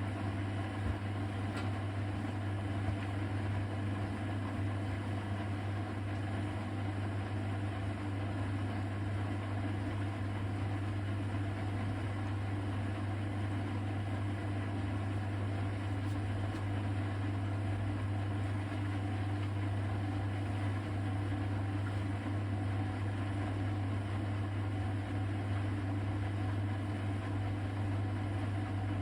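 Hoover VHD 812 front-loading washing machine running during its cold cotton programme's spin and rinse stages, a steady low hum that holds unchanged.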